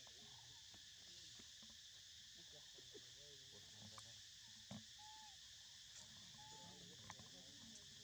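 Faint, steady drone of forest insects, with a few soft clicks and two short whistled notes in the middle.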